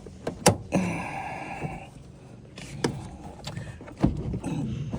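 Toyota Estima sliding-door handle parts being worked into place: a sharp click, then a steady high-pitched squeal for about a second, followed by a few knocks and a thud.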